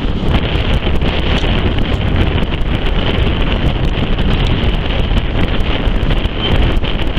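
Heavy wind buffeting the microphone from a moving steam railway train's carriage window, over the steady rumble of the coaches running along the track.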